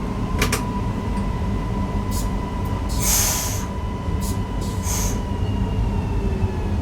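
Newag Impuls EN63 electric multiple unit running along the line, heard in the driver's cab: a steady rumble of wheels on track with a steady whine and fainter, slowly falling tones from the electric drive. Several short sharp ticks, and a longer hiss about three seconds in.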